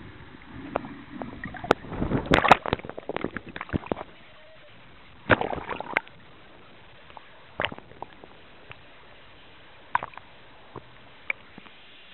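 Muffled underwater sound of a snorkeler in the water, heard through a handheld camera's housing: bubbles and water movement with sharp clicks and knocks. The clicks come in a busy cluster in the first few seconds and another about five seconds in, then only a few single clicks.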